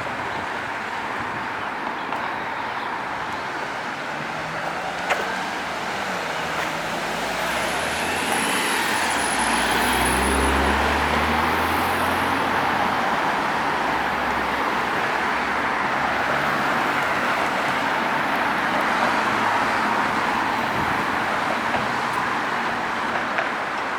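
Steady street traffic: tyre noise and engines of passing cars. One vehicle's low engine note swells as it passes close, loudest about ten seconds in. There is a single sharp click about five seconds in.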